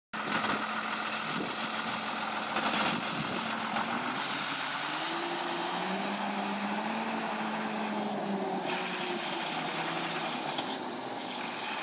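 Engine of a medium-duty box truck running as the truck drives slowly past, a steady hum whose pitch rises a little around the middle.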